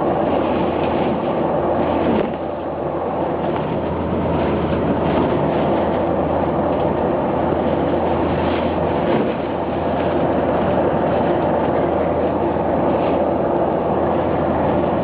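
Airliner engines droning steadily as heard inside the passenger cabin, with cabin rumble and light rattles; the level dips briefly about two seconds in.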